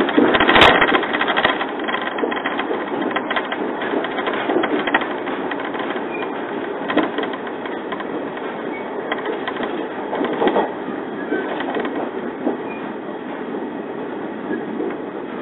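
A JR 115 series electric train running along the line, heard from inside the carriage: a steady running rumble with scattered knocks from the wheels and track. There is one sharp knock about half a second in.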